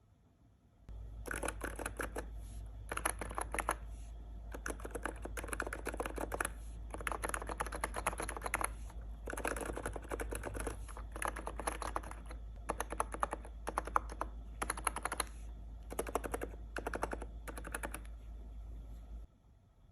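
Typing on a Hansung electrostatic capacitive (contactless) keyboard with XDA-profile keycaps: quick runs of key presses in bursts, with brief pauses between them. The typing starts about a second in and stops just before the end.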